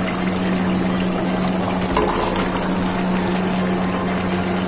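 Potato-and-tomato curry simmering in a pot on a gas stove: steady bubbling and hiss, with a low steady hum underneath.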